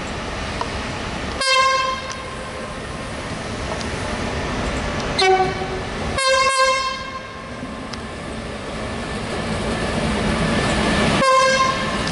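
Horn of an E.484 (Bombardier TRAXX) electric locomotive sounding short greeting toots as it runs through with a container freight train. There are four blasts: a higher note about a second and a half in, a lower note at about five seconds, a longer, broken higher toot just after six seconds, and a final higher toot near the end. Between them the train's running rumble grows louder as the locomotive comes close.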